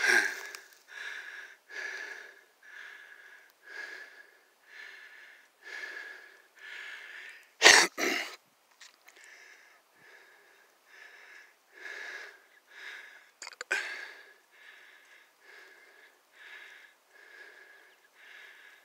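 A person breathing hard close to the microphone, about one breath a second, each breath carrying a thin wheezing whistle. Sharp handling knocks come twice near the middle.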